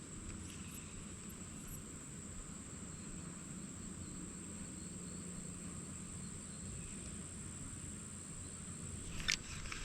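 Insects calling in a steady, unbroken high-pitched drone over a low background rumble. The drone stops near the end, and a sharp click follows.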